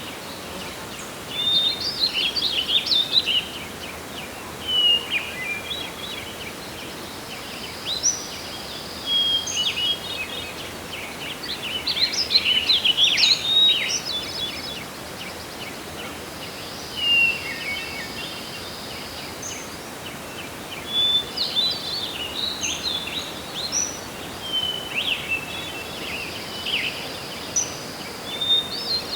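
Songbirds singing in a forest, quick chirping and warbling phrases coming every few seconds, over a steady hiss of wind and forest ambience.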